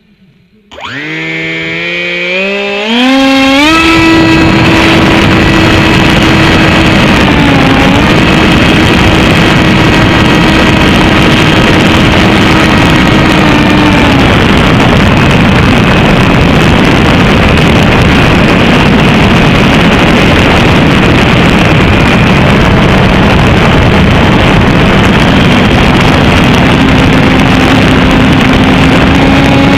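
Small FPV model aircraft's motor spinning up about a second in, its whine rising in steps for a couple of seconds to full power, then running steady for the rest with small shifts in pitch. A loud rush of wind noise comes in with it.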